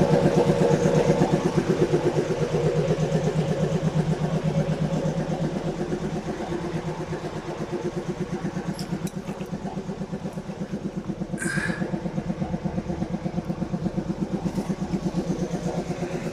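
An engine running steadily with an even, rapid pulsing beat. A brief high squeak comes about eleven and a half seconds in.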